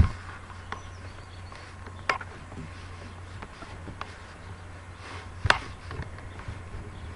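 A few sharp knocks about two seconds apart, the first and last loudest, over a steady low hum.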